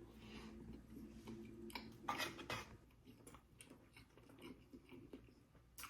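Faint chewing with small mouth clicks, a few slightly louder bites about two seconds in.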